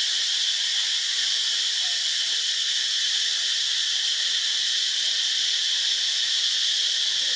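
A steady, high-pitched chorus of forest insects, like cicadas, droning without a break.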